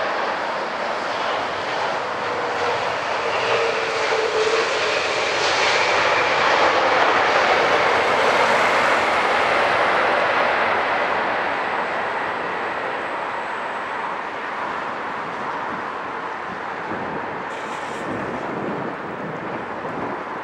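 Jet engines of a twin-engine airliner moving along the runway, a dense, steady noise that grows louder as the aircraft passes, peaks a few seconds past the middle, then slowly fades as it draws away.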